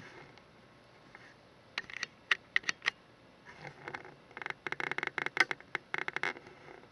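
Sunbeam Radiant Control toaster ticking and clicking while its elements glow: a few sharp ticks about two seconds in, then a quicker run of clicks for a couple of seconds near the end.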